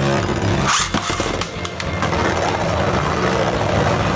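Archer Hercules Beyblade Burst tops whirring as they spin on the stadium's metal floor. About a second in, a second top is launched with a quick zip, followed by a run of sharp clicks as it lands and the tops strike.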